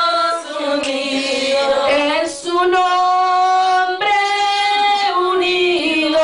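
Women's voices singing a slow hymn, holding long notes that step from pitch to pitch.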